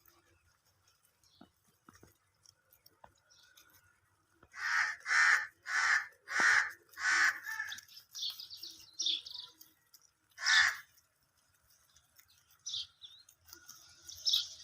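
A crow cawing: a run of about six caws roughly half a second apart, then a single caw a few seconds later. Smaller birds chirp faintly in between.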